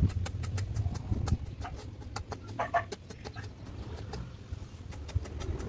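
A chicken clucking briefly about two and a half seconds in, over a low rumble and scattered light clicks.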